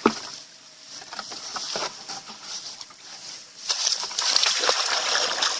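A sharp knock right at the start, then small patters and splashes of water, rising near the end into a louder stretch of splashing and sloshing as a cast net and its catch are worked in the water.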